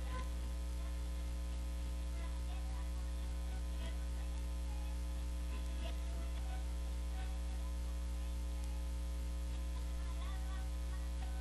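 Steady electrical mains hum from the sound system, a low unchanging buzz, with the singing and music stopped.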